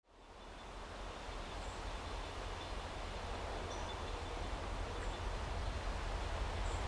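Rural outdoor ambience: steady wind noise and rustling foliage with a low rumble, slowly growing louder, and a few faint high bird chirps every second or so.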